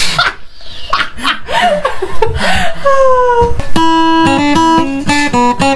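Laughing voices, then a bit over halfway through an acoustic guitar picked in a quick run of single notes, the pitch changing every fraction of a second.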